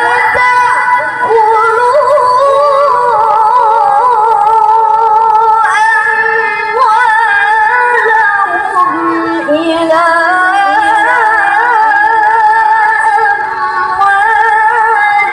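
A young woman reciting the Quran in melodic tilawah style into a handheld microphone, holding long ornamented notes with a wavering vibrato. She breaks off briefly about six seconds in and starts a new, higher phrase.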